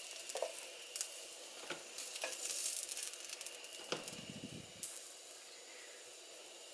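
Sausage pieces sizzling in a nonstick skillet, a steady light hiss, with a few short clicks of tongs against the pan as the pieces are picked up.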